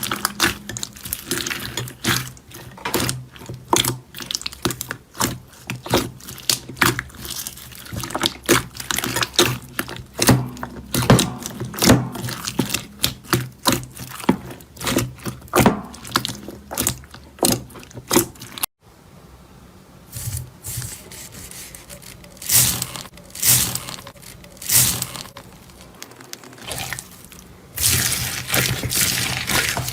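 Slime being squeezed and poked by hand, with dense wet clicking and popping. About two-thirds through it cuts to another slime clip, with sparser, softer squishes.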